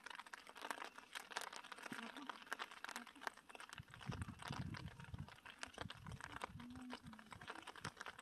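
Faint, dense crackling outdoors, with a low wind rumble on the microphone from about four seconds in until about seven seconds in.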